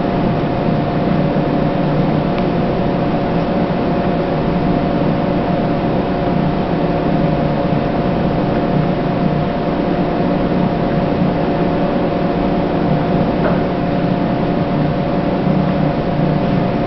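Steady mechanical hum with hiss and a constant whine, unchanging throughout.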